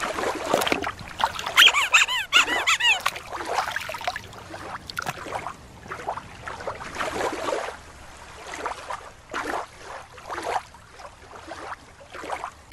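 Killer whale (orca) calls: a series of squealing whistles that rise and fall in pitch, the clearest a few in a row about two seconds in and another near the middle.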